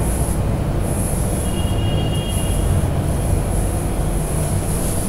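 A steady low rumble of background noise, with a blackboard duster rubbing chalk off a blackboard.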